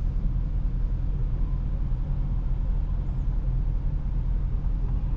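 Mercedes C63 AMG's 6.2-litre V8 idling steadily with a low rumble, heard from inside the cabin while the car stands still.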